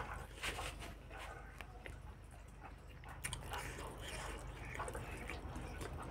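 Close-up eating sounds: chewing and mouth smacks with a scatter of short, soft, irregular clicks as rice is eaten by hand.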